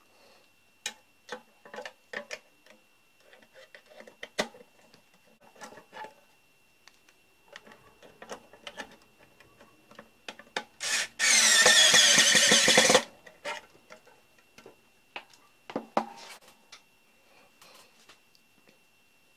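Cordless drill/driver running for about two seconds midway, driving a screw to fasten the contactor into the metal panel box, after a brief first burst. Scattered clicks and knocks of parts and screws being handled come before and after.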